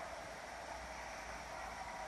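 Steady hiss with no distinct sounds standing out.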